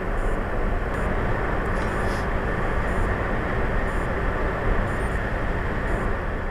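Steady road and tyre noise of a Tesla driving at highway speed, heard from inside the car, with no engine note.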